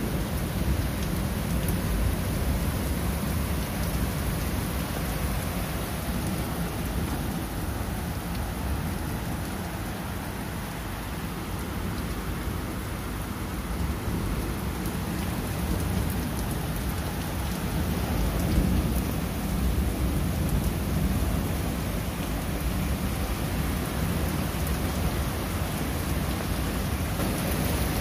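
Heavy rain falling steadily onto pavement and a wide puddle of standing water, with a low continuous rumble underneath.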